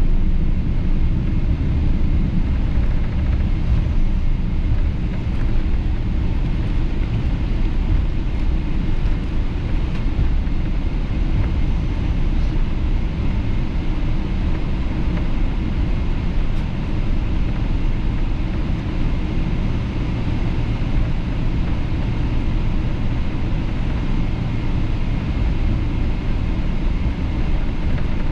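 Steady low rumble inside the cabin of a Boeing 777-200LR rolling along the ground after landing: engine noise and rumble from the wheels on the pavement, easing off slightly over the stretch.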